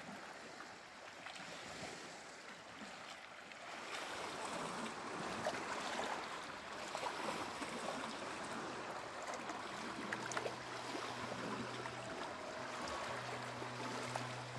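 Waves washing against a big lake's shore, with wind, stronger from about four seconds in. A low steady hum comes in about ten seconds in.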